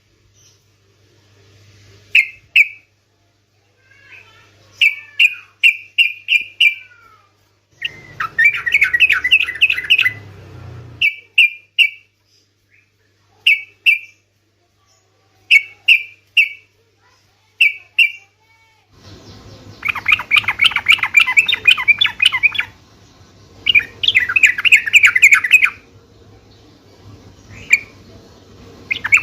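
Yellow-vented bulbul (cucak trucukan) singing: short bubbly phrases repeated every second or two, broken by three longer runs of fast chattering notes.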